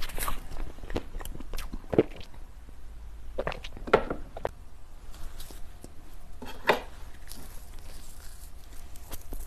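Close-miked eating: bites and chewing of a dessert, heard as irregular sharp clicks and mouth smacks, with a cluster of them about four seconds in.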